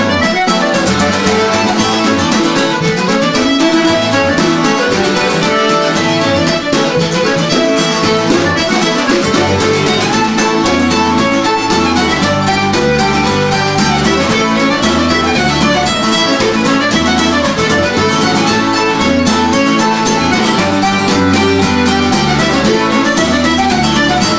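Traditional Newfoundland reel medley played live on button accordion and acoustic guitar: fast, unbroken melody over a strummed rhythm and bass runs.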